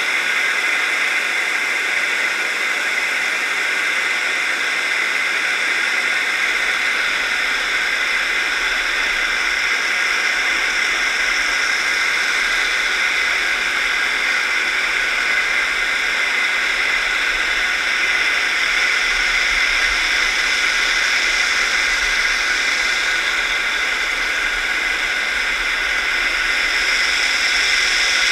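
Steady rushing hiss of water heard through a GoPro's underwater housing as it is towed along the seabed on a scallop dredge.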